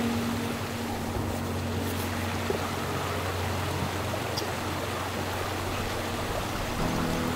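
A steady rush of running water, under soft background music holding low notes.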